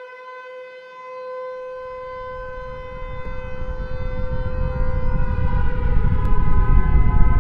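Air-raid siren sounding a steady held tone, its pitch wavering slightly near the end, with a low rumble swelling steadily louder beneath it from about a second and a half in.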